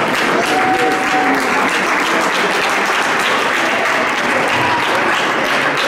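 An audience applauding steadily: many hands clapping together in a dense, even patter.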